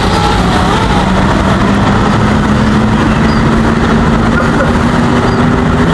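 6-inch FPV freestyle quadcopter's brushless motors and propellers running in flight. A steady hum rises slightly in pitch, under a loud rushing hiss.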